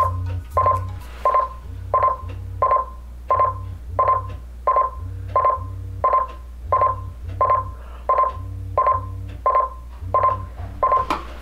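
LIELONGREN digital alarm clock's buzzer going off: short electronic beeps repeated at an even pace, about three every two seconds. Underneath them, a low vibration hum from its bed-shaker pod pulses on and off.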